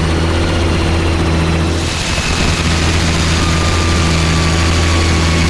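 Gyroplane engine idling with a steady low drone while the rotor turns. About two seconds in a rushing hiss comes up over it and stays.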